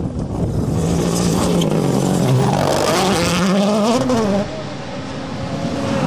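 WRC Rally1 cars' turbocharged four-cylinder engines at full throttle on a gravel stage, the revs climbing and dropping through quick gear changes over a hiss of tyres on loose gravel. About four and a half seconds in, the sound drops suddenly, and another car's engine comes up loud near the end.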